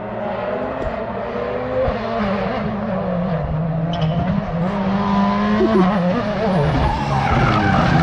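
A rally car's engine coming closer along the stage, its revs rising and falling through gear changes and growing louder, with sharp cracks about one and two seconds in.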